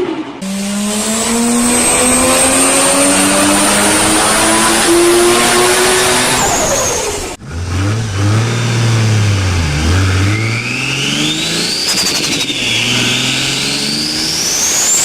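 Turbocharged car engine pulling hard under acceleration, its pitch climbing steadily with a high turbo whistle above it. About halfway through it cuts off abruptly, and a second turbocharged car revs up and down several times, its turbo whistle rising and falling with each rev.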